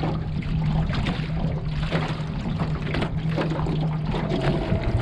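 Water slapping and trickling against the hull of a small aluminium boat, with a steady low hum underneath that shifts to a higher tone near the end.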